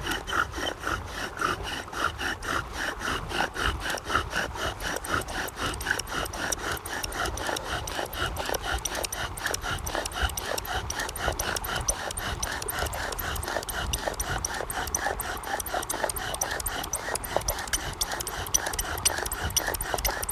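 Bow drill being worked hard to make a coal: the wooden spindle squeaking in the hearth board's socket with each bow stroke, in a fast, even rhythm of several strokes a second that keeps going throughout.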